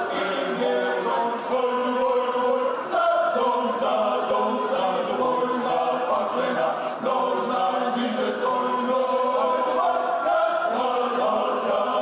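Male klapa of seven men singing a cappella in close multipart harmony, the traditional Dalmatian style: unaccompanied male voices holding chords that move every second or so.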